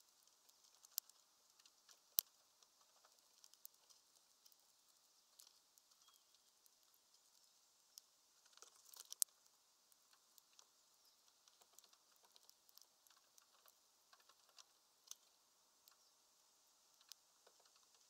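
Faint, scattered sharp clicks and taps of greenfinches and a chaffinch pecking at seed on a bird feeder, with a quick run of clicks about nine seconds in.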